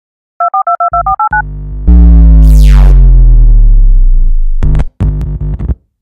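Synthesized electronic intro sting: a run of about eight quick high beeps, then a loud deep bass tone with a sweep falling through it, ending in a few short stabs.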